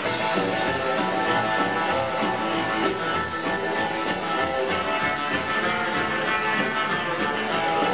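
Live rock-and-roll band playing an instrumental, with an electric guitar lead over a steady beat.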